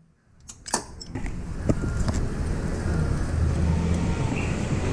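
A Daihatsu Tanto's engine running steadily with a low hum, after a few clicks about half a second in.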